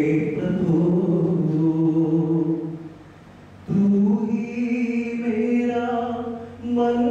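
A man singing solo and unaccompanied into a handheld microphone, holding long, slow notes. There is a short pause about three seconds in before the singing resumes.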